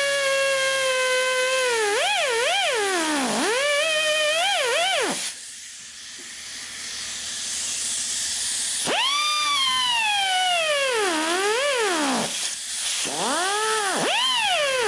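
Air-powered cutoff wheel whining at high speed, its pitch dropping sharply again and again as it bites into the trigger lock's soft metal and recovering as it lifts. It stops about five seconds in, leaving a hiss of air, and starts again about four seconds later with more dips under load.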